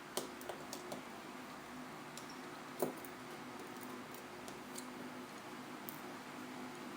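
Faint small clicks and ticks from a precision screwdriver removing the last tiny screws from an iPhone 4S's logic board, with one louder click about three seconds in, over a low steady hum.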